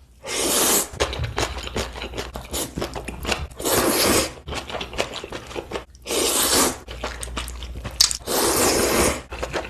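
A person eating ramen noodles close to the microphone: four long slurps about two and a half seconds apart, with chewing clicks between them.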